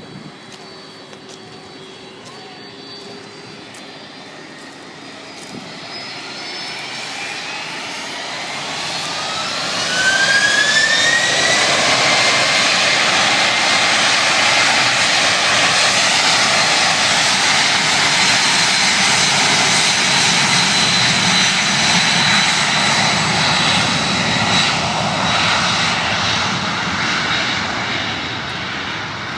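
Airplane engines spooling up for takeoff: a whine rises in pitch over several seconds, then levels off into loud, steady engine noise at takeoff power that eases a little near the end.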